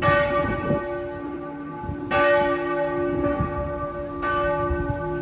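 Church bell tolling: three strikes about two seconds apart, each ringing on and slowly fading.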